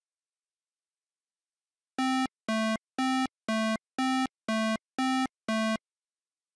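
Synthesized hi-lo ambulance siren: eight short electronic notes alternating high and low, about two a second, starting about two seconds in.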